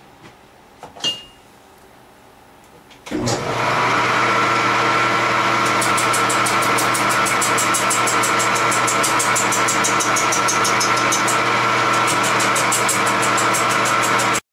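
Wood lathe fitted with a motor-driven countershaft (jackshaft) belt drive, starting about three seconds in and then running steadily with a 13-inch rough log spinning on it. The running sound is a steady hum with a high, even tone, and a rapid even ticking comes and goes through the middle. It cuts off suddenly just before the end.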